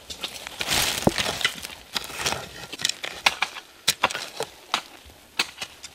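A hoe digging into soil around a spring bamboo shoot: a series of irregular sharp chops and knocks, about two or three a second, with bursts of scraping and crumbling earth in the first couple of seconds.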